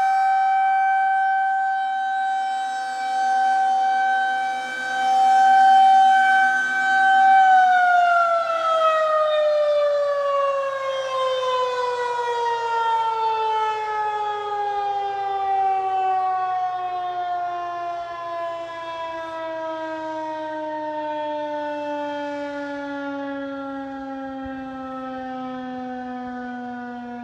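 Outdoor tornado warning siren holding a steady tone that swells and fades in loudness. About seven seconds in it cuts off and winds down, its pitch falling slowly and steadily.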